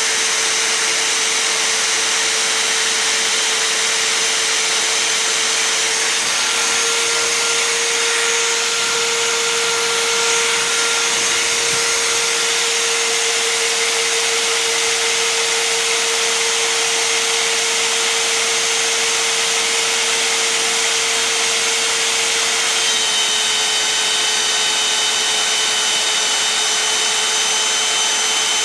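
Magnetic drill's motor running steadily under load while drilling through thick steel plate, with a constant whine. Its pitch shifts slightly about six seconds in and drops a little about 23 seconds in.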